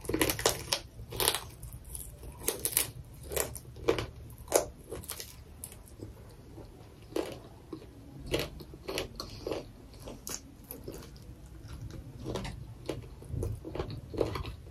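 Close-up biting and chewing of fried chicken feet, with irregular sharp crunches.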